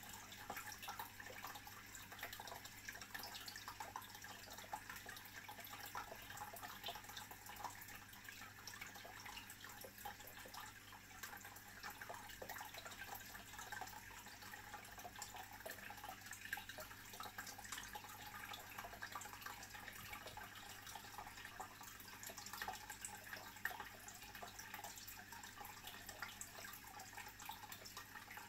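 Aquarium water circulating: a faint, steady trickling and bubbling made of many tiny crackles, over a low steady hum.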